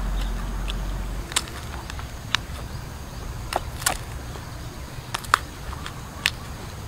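A fresh young lotus seed pod being torn apart by hand, its crisp green flesh giving a series of sharp, irregular snaps and cracks as the seeds are pried out.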